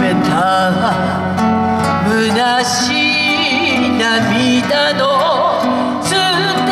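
Two acoustic guitars playing a slow Japanese folk ballad while a man sings the melody, heard through a small outdoor PA.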